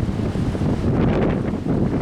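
Windstorm gusts buffeting the microphone as a loud, low rumble, with a stronger gust about a second in adding a higher rushing hiss.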